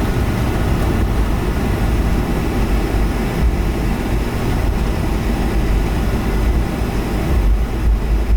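Boeing 757-200 airliner heard from inside the cabin over the wing: a steady, loud, low rumble of jet engines and airframe.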